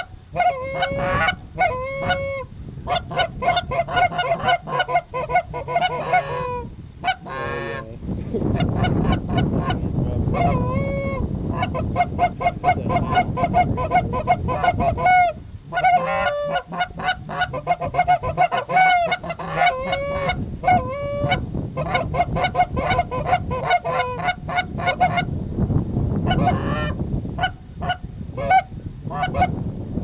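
A flock of geese honking, many calls overlapping in a dense, continuous chorus. A low rushing noise swells beneath the calls about eight seconds in and again near the end.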